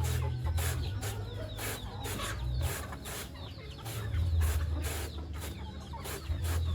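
Chickens clucking while a blade chops repeatedly, about two sharp strokes a second, through fibrous banana stem. A low steady hum sits underneath.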